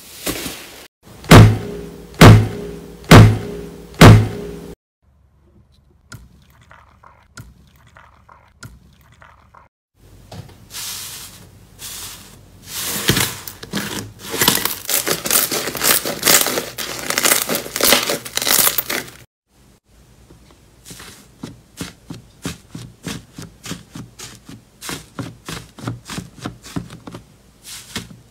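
Hands pressing, squashing and poking slime. It starts with four heavy, squishy thumps about a second apart, then goes into a long run of dense wet crackling and popping, and near the end into quicker, regular pokes, about two a second.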